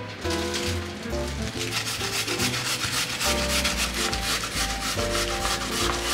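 Peeled nagaimo (Chinese yam) scraped back and forth over a salad grater, shredding it into thin strands: quick, even, repeated scraping strokes that start about a second and a half in, with background music underneath.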